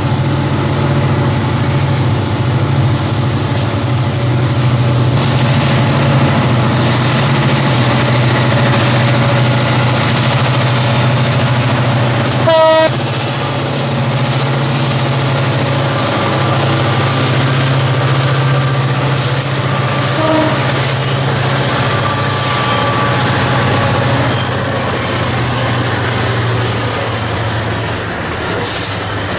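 Two KAI CC205 EMD diesel-electric locomotives hauling a loaded coal train, running with a steady low engine drone over the rumble of wheels and wagons as the train rolls slowly past. A brief horn toot sounds about twelve seconds in, the loudest moment.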